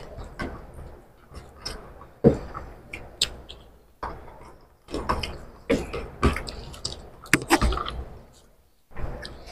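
Eating sounds of two people eating rice and egg curry with their hands: fingers squishing and mixing rice on the plates, chewing and lip smacks. Irregular wet clicks and soft knocks, with a few louder sharp smacks.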